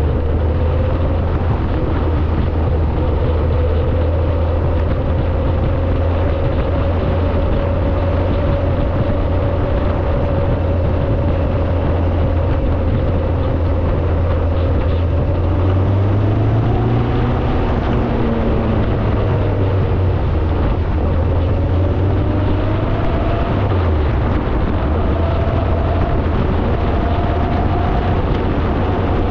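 Car engine running steadily on the move, a low drone mixed with road and wind noise. The engine note shifts a little past halfway and again about three quarters through, as the speed changes.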